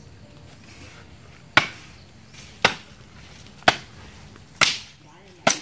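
Wood being chopped by hand: five sharp chopping strikes into branches, about a second apart.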